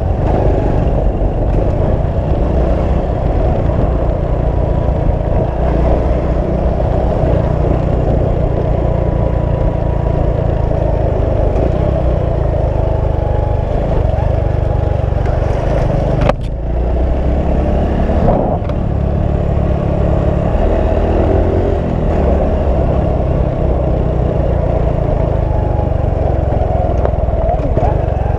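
Motorcycle running steadily while being ridden, a continuous low engine and road noise. A short sharp knock about sixteen seconds in.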